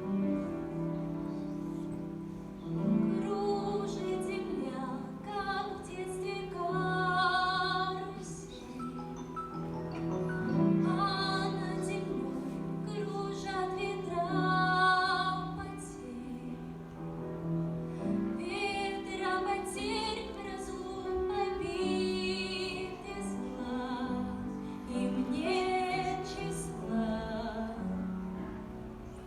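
A woman singing long, held notes in a classical, operatic style, over instrumental accompaniment with low sustained notes.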